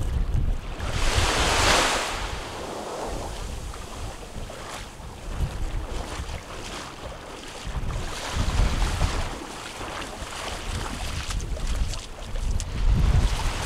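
Wind buffeting the microphone in gusts over small waves washing onto a sandy shore, with a brief rush of water noise about a second in.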